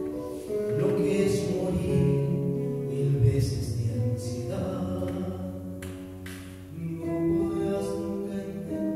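A man singing live into a microphone, holding long notes over instrumental accompaniment.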